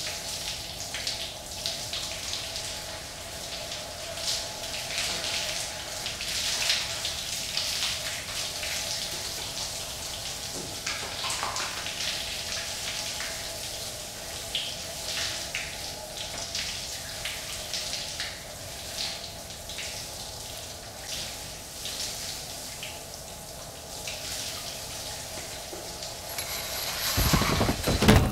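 Shower spray pattering and splashing into a bathtub, over a steady hum. Near the end a loud rising rush swells up and cuts off abruptly.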